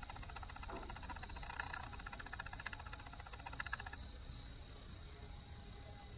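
A rapid, even mechanical clatter, like a small machine running, that stops about four seconds in. Short high insect chirps repeat about twice a second.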